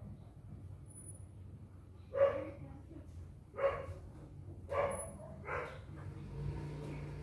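A dog barking, four barks in a few seconds, over a steady low hum.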